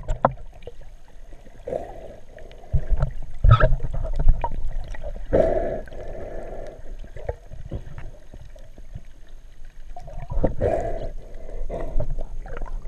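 Water sloshing and gurgling around a camera held at and just below the surface, muffled by the water. Several louder surges of splashing come through it.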